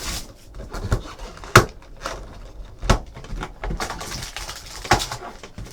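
Cardboard trading-card box being opened and its packs handled on a table: rustling, with a few sharp knocks, the loudest about one and a half seconds in.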